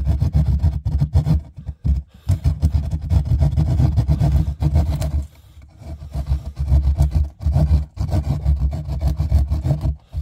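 Pointed hand saw cutting through a ceiling in quick, repeated strokes, stopping briefly about two seconds in and for about a second just past the halfway point.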